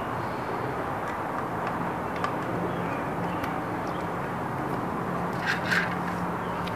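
Steady background rumble and hiss with a faint low hum, with a few faint clicks partway through.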